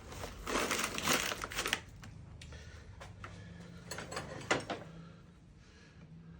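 Scraping and rattling of metal on metal as a tight gudgeon pin is worked through an engine piston: a burst of scraping lasting over a second, then scattered sharp clicks and knocks about four seconds in.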